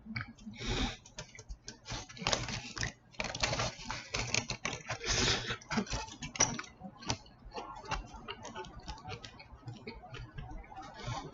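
Close-miked eating of a chicken burrito: irregular wet clicks and smacks of chewing, with short bursts of rustling.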